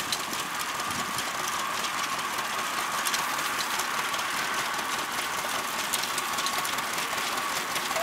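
A 1943 John Deere A's two-cylinder engine running steadily as it pulls a 1920s McCormick-Deering ground-driven grain binder, with a light, quick clatter of the binder's gears and chains over it.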